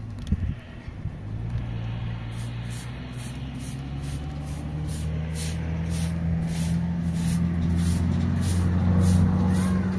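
Straw broom sweeping a concrete yard in short swishing strokes, about two a second, over a steady low motor drone that grows louder toward the end.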